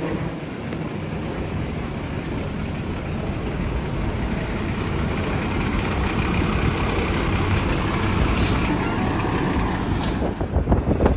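Diesel engine of a McNeilus rear-loader garbage truck running steadily at low speed, growing slightly louder. Near the end it turns louder and uneven, with a few bumps.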